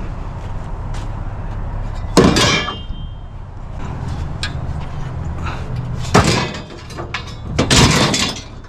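Metal bed frame parts clanking as they are handled and dropped: three loud clangs, the first with a short metallic ring, the last a longer rattle near the end. A steady low rumble runs underneath.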